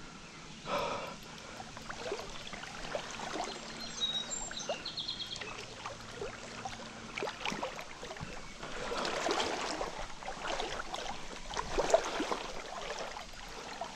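Stream water running, with irregular splashes, clicks and knocks.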